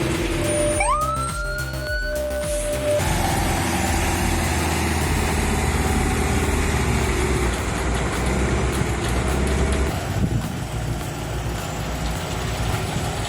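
Heavy-haul truck's diesel engine running, with a siren-like whine that rises about a second in, holds, and stops around three seconds in. A low, steady engine note then runs until near the end.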